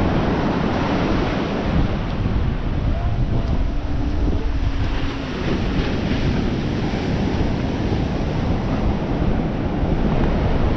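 Ocean surf washing onto the beach, with steady wind noise on the microphone.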